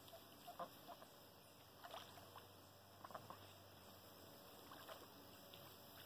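Ducks giving a handful of short, faint quacks, scattered singly and in quick pairs over a low steady hiss.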